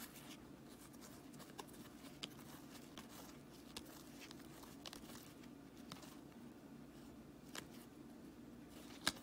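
Faint flicks and slides of hockey cards being dealt by hand from one stack to another, a soft tick with each card, over a steady low room hum; one sharper click near the end.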